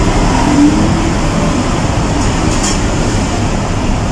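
Steady low rumbling background noise with no distinct events standing out.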